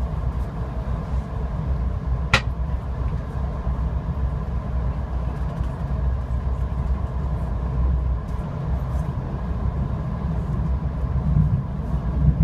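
Steady low rumble of a VIA Rail LRC passenger coach running along the track, heard from on board, with one short sharp click about two seconds in.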